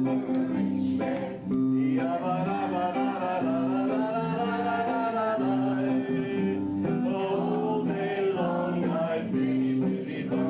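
A song: guitar playing chords with a voice singing a melody over it.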